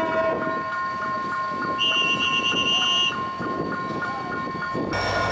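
Diesel passenger locomotive approaching with its train, its engine and running gear rumbling under a level-crossing warning signal that rings in a steady pattern of about three beats a second. The locomotive's horn sounds once for just over a second, about two seconds in. Near the end the sound changes abruptly to a steadier noise.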